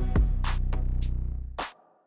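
Background music: an electronic beat with a deep bass line and sharp drum hits, cutting out briefly near the end.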